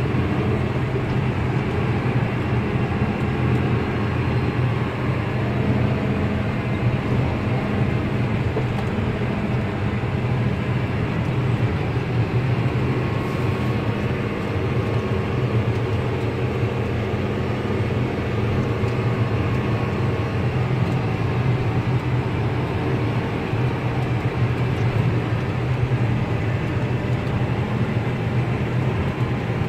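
New Holland T8.320 tractor's six-cylinder diesel running steadily, heard inside the cab while it pulls a disc harrow across the field. The drone is a constant low hum that does not rise or fall.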